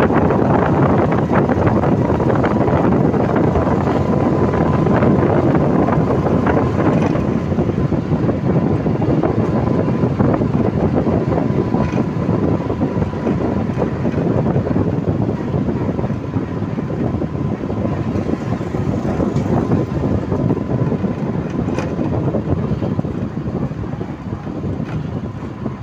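Ride inside a moving auto-rickshaw: its engine running with steady road noise and wind rushing over the microphone, easing slightly near the end.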